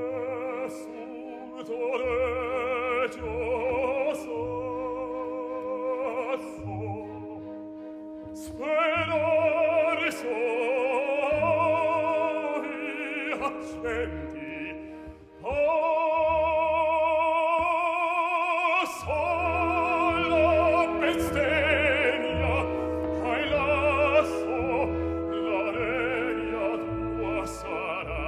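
An operatic baritone sings an aria with wide vibrato, accompanied by a symphony orchestra of strings and a steady low pulse. The loudest moment is one long held note about halfway through.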